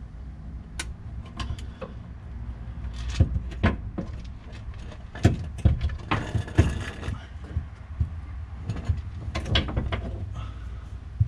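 Hand tools working on a car's underside during a power steering rack install: scattered metal clicks and clanks that come in three bunches, over a steady low hum.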